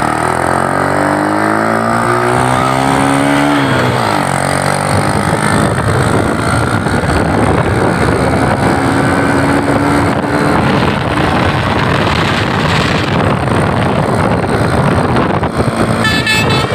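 A vehicle engine revs up steadily for about three and a half seconds, then drops as it changes gear, followed by the rush of engine and road noise at speed. Near the end a bus's Basuri telolet horn starts playing its stepped multi-tone melody.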